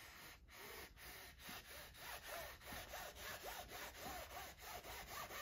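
Cricut Mini Press rubbed back and forth under firm pressure over kraft paper while heat-pressing a neck-tag transfer, making a faint, rhythmic scraping of paper with small squeaks.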